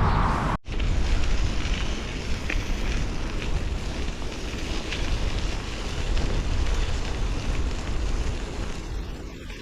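Wind rushing and buffeting over the microphone while riding a bicycle, a steady rough rumble broken by a brief drop about half a second in.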